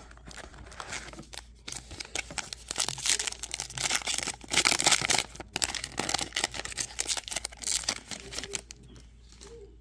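A trading card pack's foil wrapper being torn open and crinkled by hand: a run of crackling rips and rustles, loudest around the middle.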